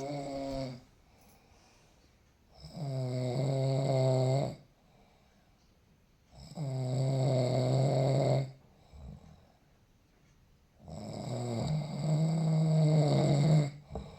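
A man snoring in his sleep: three long, pitched snores about four seconds apart, each lasting about two seconds, after the tail end of one at the very start.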